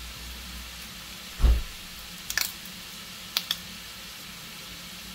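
Chicken hearts frying in a pan, a steady faint sizzle. Over it come one dull thump about a second and a half in and a few light clicks as a soft sour cream pouch is squeezed out into a plastic bowl.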